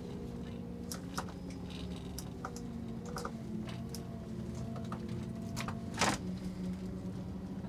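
Double-decker highway bus's engine running with a low, steady hum as it moves slowly, heard from inside the cabin, with scattered light clicks and rattles and a sharper knock about six seconds in.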